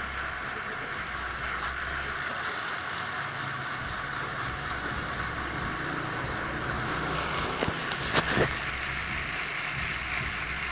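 Bamboo-thinning machine running steadily, with a few sharp knocks a little past the middle.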